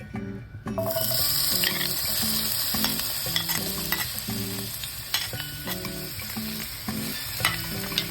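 Food sizzling in hot oil in a pan, starting suddenly about a second in, with the clicks and scrapes of stirring.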